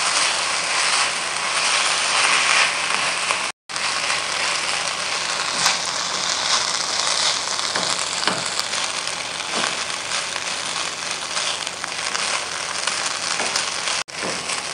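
Boiled rice sizzling in hot oil in a nonstick pan while being stirred and scraped with a silicone spatula, with scattered scrapes against the pan. The sound cuts out for a moment about three and a half seconds in.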